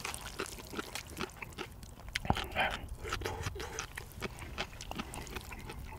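Close-miked eating sounds of a person chewing spicy cheese-and-corn noodles: a dense string of short wet smacks and clicks from the mouth.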